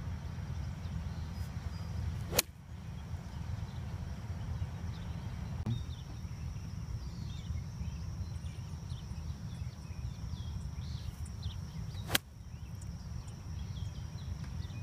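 A golf iron, a 9-iron on the first shot, striking the ball off the turf twice: two sharp clicks about ten seconds apart. Under them run a steady low rumble and a constant thin high whine.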